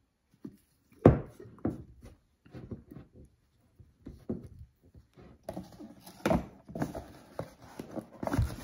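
Items being handled and set down on a tabletop: an irregular run of knocks and thunks, the loudest about a second in, with a noisier rustling stretch in the second half.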